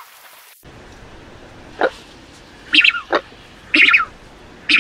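Falkland steamer duck calling: about five short, separate calls at uneven gaps.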